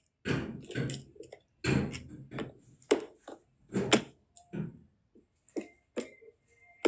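Irregular taps, knocks and rustles of a small box and other items being handled close to a phone's microphone.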